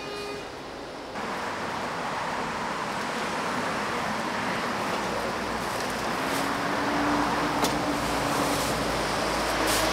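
Steady street traffic noise that gets suddenly louder about a second in, with a low engine rumble and hum coming in about halfway through as a vehicle passes.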